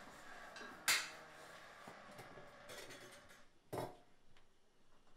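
Metal cookware being handled at a kitchen stove: a sharp, ringing clink about a second in and a duller knock about four seconds in, over faint room noise.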